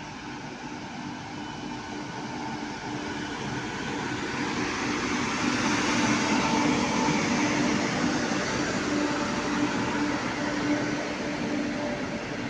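A WAP-7 electric locomotive hauling a passenger train past at close range: its running noise and the rattle of wheels on rail grow louder until the cab goes by about halfway through, then carry on steadily as the first coach follows, with a steady hum running throughout.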